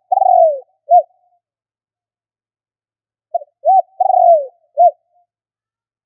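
Spotted dove cooing in two phrases. The first phrase ends with a long falling coo and a short closing note; about three seconds later comes a full phrase of two short clipped notes, a long falling coo and a short final note.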